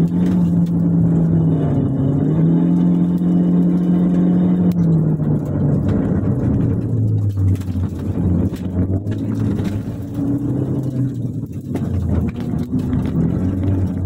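Proton Saga FLX's Campro four-cylinder engine with CVT, heard from inside the cabin while lapping a circuit. It holds a high, level note under throttle, dips briefly, then drops to a lower note about five seconds in as the driver lifts. It wavers for a while and climbs again near the end.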